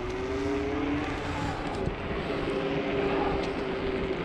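Riding noise on an electric scooter: wind rumbling on the body-worn microphone, under a wavering hum that rises slightly in pitch.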